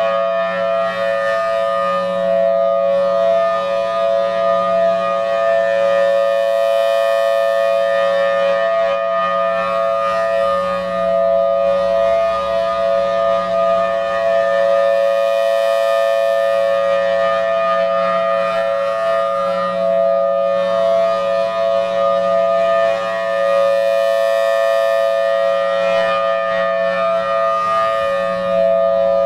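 Federal Signal Thunderbolt 1003 outdoor warning siren sounding its steady Alert signal, a held two-note chord from its 5/6 port-ratio rotor. The sound swells and fades about every eight to nine seconds as the rotating siren head sweeps past.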